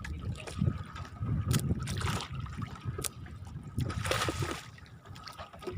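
Water lapping and trickling against a small fishing boat, with scattered sharp knocks and a brief hissing rush about four seconds in.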